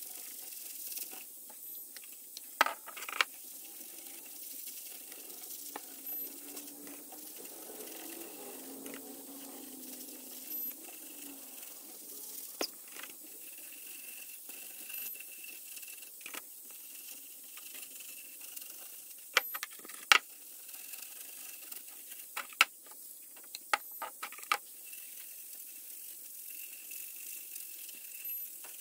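Scattered sharp clicks and light taps over a faint steady hiss as a finish brush works over a burl bowl on a stopped lathe, the bowl turned by hand between strokes.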